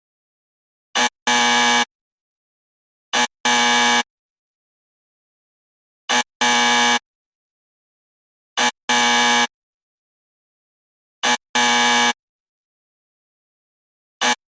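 Game-show style "wrong answer" buzzer sound effect: a short buzz followed at once by a longer buzz. The pair plays over and over every two to three seconds, with silence between.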